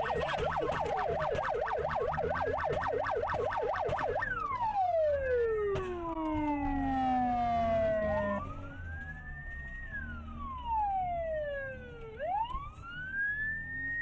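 Police car sirens: a fast yelp for the first few seconds, then slow wails rising and falling, with two or more sirens sounding together around the middle. A steady low road and engine rumble runs underneath.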